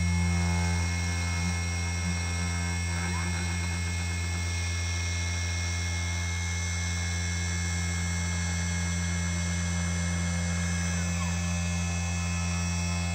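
Small hobby CNC lathe, converted from a CNC1610 engraving machine, running during a turning test: a steady motor hum with several steady whining tones over it, and brief faint pitch glides about three seconds in and again near the end.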